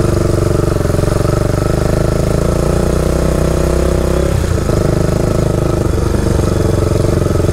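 Honda ATC 350X three-wheeler's single-cylinder four-stroke engine running under load while being ridden, on its freshly installed reconditioned Keihin carburetor. A brief dip in engine pitch comes a little past halfway, then it pulls steadily again.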